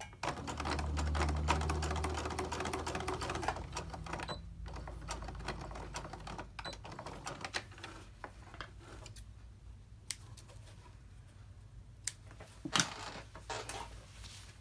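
Domestic electric sewing machine stitching through a thick stack of layers (cotton, batting and a pleated terry towel). It runs steadily with a low motor hum for about four seconds, then goes in slower, shorter runs and stops. A few sharp clicks come near the end.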